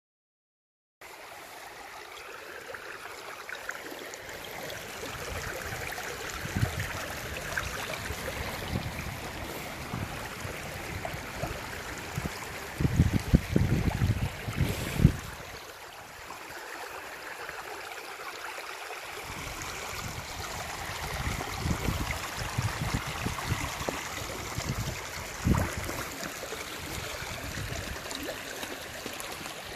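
Running water and surf on a rocky shore, a steady wash that starts abruptly about a second in. Wind or handling bumps on the microphone rumble loudly about halfway through.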